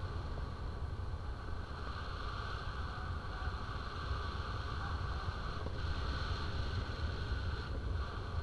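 Steady rush of airflow over the camera microphone of a paraglider in flight, with a deep rumble underneath.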